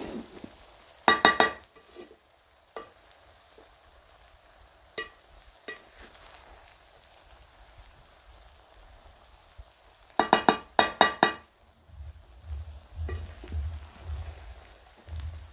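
Wooden spoon stirring and turning cooked vegetable rice in an aluminium pot, knocking on the pot's side with ringing clanks: two quick runs of clanks, about a second in and again about ten seconds in, with single taps between. A low rumble comes in over the last few seconds.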